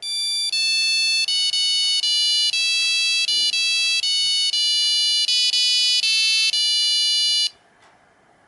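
Nokia 5125 mobile phone playing one of its original monophonic ringtones: a quick melody of single buzzy beeping notes, one at a time, stopping abruptly about seven and a half seconds in. A faint tick follows near the end.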